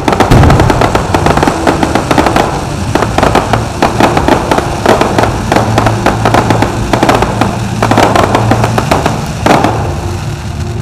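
Aerial fireworks bursting in quick succession: a dense stream of crackling and popping, with louder bangs right at the start and about nine and a half seconds in.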